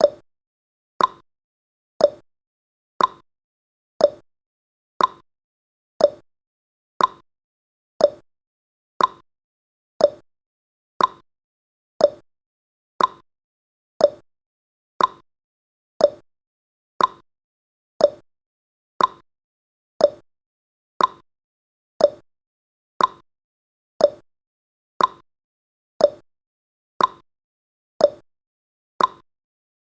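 Countdown timer's clock-tick sound effect: a short, sharp tick once every second, perfectly regular, each dying away quickly.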